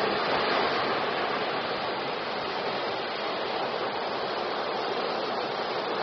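Ocean surf: waves breaking and foaming near the shore, a steady rush of water that is a little louder at the very start.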